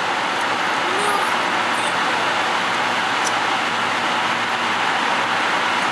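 Car driving at speed through a road tunnel, heard from inside the cabin: a steady rush of tyre and engine noise.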